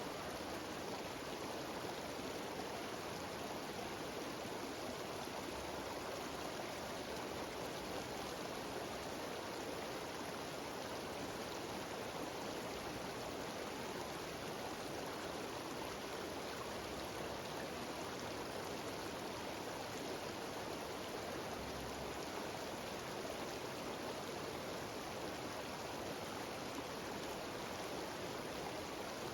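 Mountain stream cascading over rocks in a series of small waterfalls: a steady, even rush of water.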